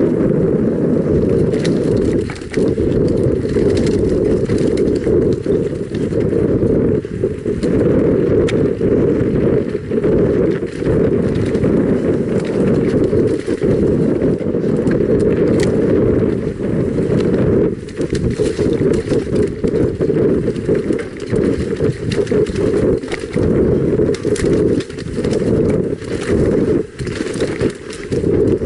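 Mountain bike descending a rough forest trail: constant heavy wind rumble on the camera microphone, with frequent clattering knocks as the bike rattles over roots and bumps.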